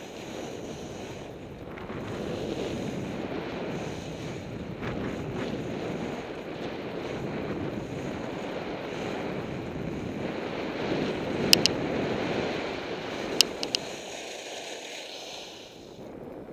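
Skis running over packed, groomed snow, with wind rushing over the camera's microphone, a steady rushing noise that eases off near the end. A few sharp clicks come through in the last third.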